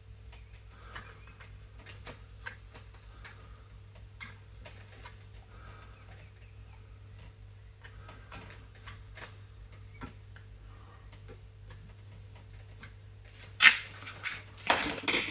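Faint, scattered clicks and scrapes of a small pick tool and gloved fingers working a new rubber dust boot into a brake caliper, over a steady low hum. Near the end come two loud, short rushes of noise.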